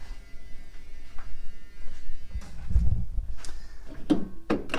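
Low buzzing hum under the hood, with a few clicks and knocks toward the end as the air cleaner lid is handled.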